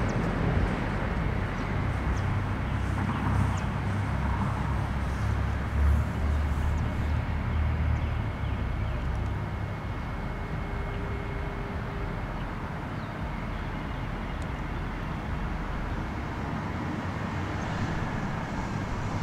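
Outdoor background noise: a steady low rumble and hiss of traffic, easing slightly after about eight seconds.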